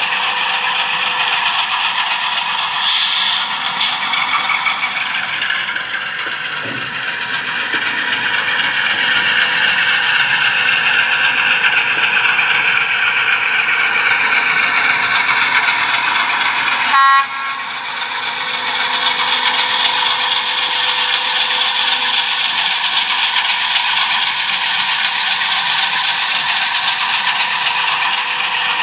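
Piko H0 model trains running on the layout track, with a steady rattling clatter of wheels over the rails. A short, loud horn blast from a sound-equipped locomotive comes about seventeen seconds in.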